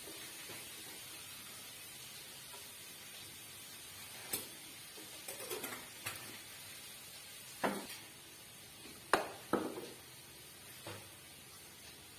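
A spoon scraping and tapping against cookware as a crushed spice paste is transferred: a scattering of short clicks and knocks, a few seconds apart, over a faint steady hiss.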